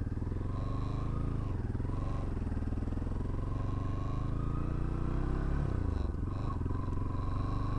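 Bajaj Pulsar NS 200 single-cylinder engine running through a sound-modified, loud aftermarket exhaust while being ridden. The engine note dips briefly about six seconds in, then climbs again.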